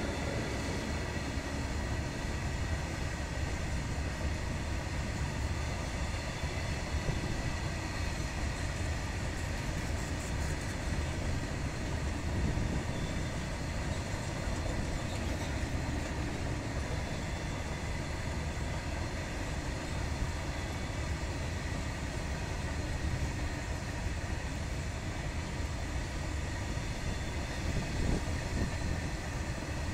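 Loaded wagons of a coal freight train rolling past at speed: a steady rumble of steel wheels on rail.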